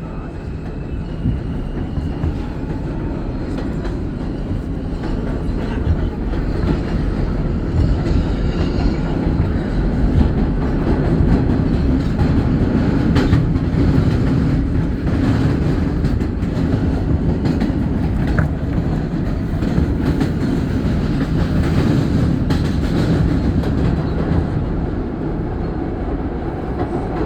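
R160 subway car running at speed, heard from inside the car: a steady heavy rumble of wheels on rail with scattered clicks of rail joints. It grows louder over the first few seconds as the train picks up speed, then holds steady.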